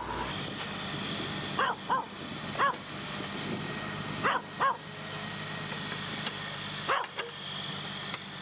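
A dog barking in short pairs, about seven barks in all, over a steady machine hum.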